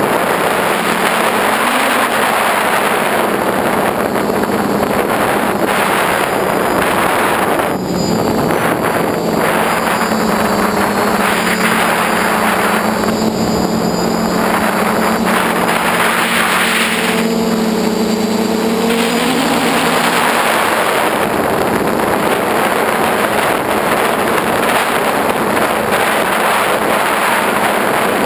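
Motors and propellers of an FPV model aircraft, picked up by its onboard camera, under a heavy rush of wind on the microphone. A humming pitch shows through the noise in the middle stretch and wavers up and down as the throttle changes.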